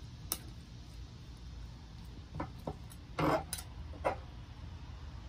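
Spoon and knife clicking and scraping on a plastic cutting board and glass bowl as grill-roasted eggplant flesh is scooped from its skin: a few scattered light clicks and knocks, the loudest just after three seconds in, over a steady low hum.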